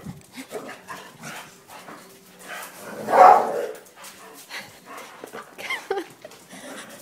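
A boxer dog barks once, loudly, about three seconds in, with a short whine near the end.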